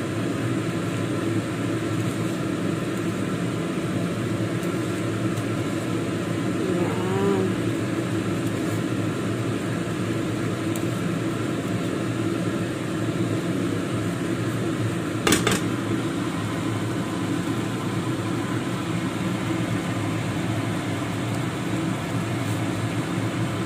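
Steady fan-like hum in a kitchen, with one sharp clack about fifteen seconds in.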